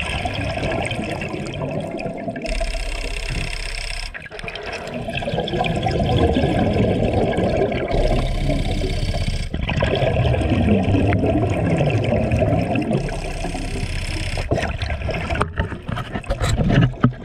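Scuba regulator breathing heard underwater: a hissing draw on the regulator, then a long bubbling rumble of exhaled bubbles, in two slow breath cycles, with a few clicks near the end.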